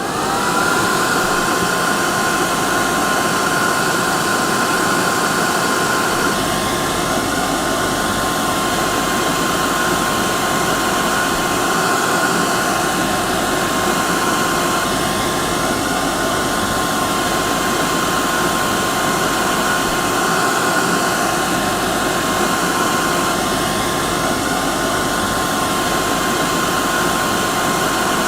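Hair dryer running: a steady rush of air with a constant motor whine over it. It comes up to speed within the first second, then holds unchanged.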